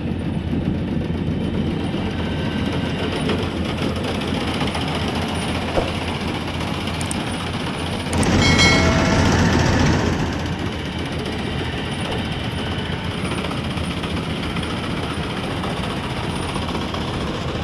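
Rice combine harvester running steadily, its engine and threshing machinery making a continuous rumble that swells louder for about two seconds midway.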